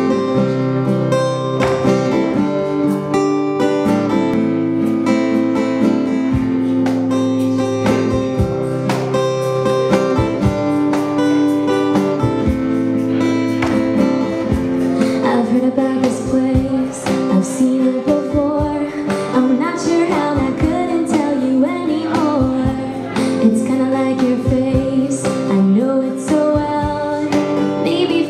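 Live acoustic music: a steel-string acoustic guitar strummed in chords, with a cajon tapping out the beat. A woman's singing voice comes in about halfway through.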